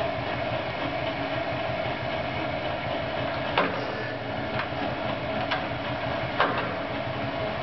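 Oliver Model 600 drill grinder running: a steady mechanical whir of motor and gearing, with four sharp clicks about a second apart in the middle.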